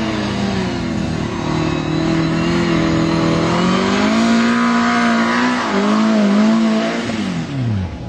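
Sporting trials car engine revving up and down as the driver works the throttle, its pitch rising and dipping repeatedly. Near the end the revs drop away sharply.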